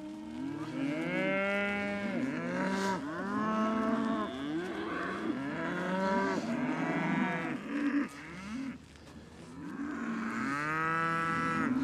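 Several Murray Grey cattle mooing, call after call overlapping, with a short lull about nine seconds in before the mooing picks up again.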